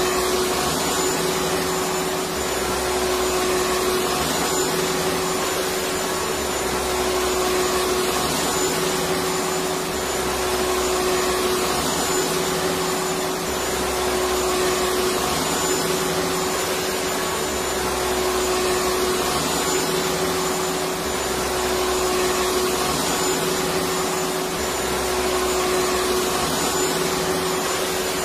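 Vacuum cleaner running steadily: a continuous motor whine over a rush of air, with a low throb that comes and goes every few seconds.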